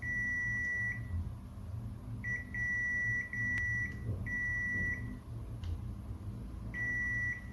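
Multimeter continuity buzzer sounding a steady high-pitched beep in about six separate bursts of uneven length as the probes touch points on a laptop motherboard; each beep marks continuity, here between the probed pins and the 3.3 V line.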